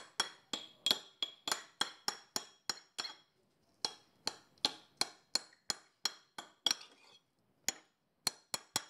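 Metal spoon clinking repeatedly against a dog bowl while spooning and mashing wet dog food: sharp taps about three a second, each with a short ring, broken by two brief pauses.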